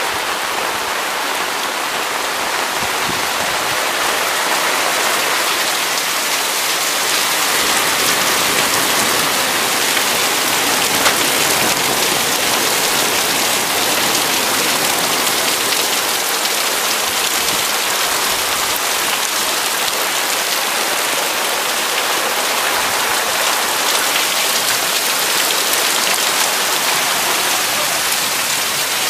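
Heavy tropical downpour falling steadily on flooded streets: a loud, even hiss of rain with no let-up.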